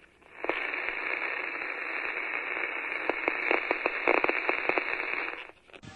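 Radio-style static hiss, a glitch sound effect, with scattered crackles and pops that are thickest past the middle. It comes in about half a second in and cuts off suddenly just before the end.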